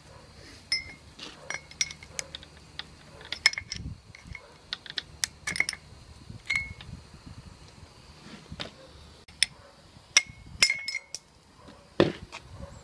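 Hammer tapping a metal drift to knock the inner wheel-bearing races out of a 2006 Nissan Micra's rear brake drum hub: irregular metallic taps and clinks, some with a short ring, with a louder knock near the end.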